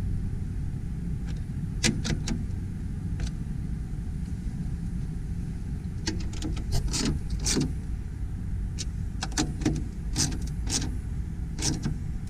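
Irregular metallic clicks and clinks from a hand tool working the nuts on a spoiler's mounting studs under a car's deck lid, in small clusters over a steady low hum.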